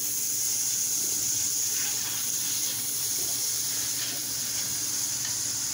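Butter and steak drippings sizzling steadily in a hot stainless-steel frying pan.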